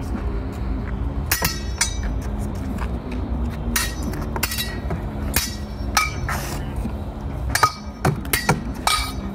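Steel swords clashing against each other and against a frying pan used as a buckler during sparring: about ten irregular, sharp metallic clanks, several ringing briefly.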